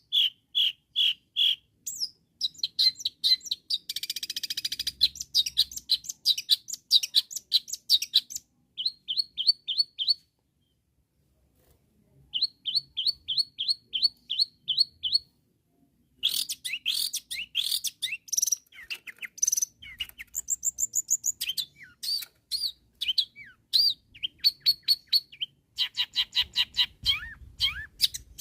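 Long-tailed shrike in full song: rapid, varied high chirps, trills and a harsh buzzy run, with a pause of about two seconds partway through and then a quick series of repeated notes.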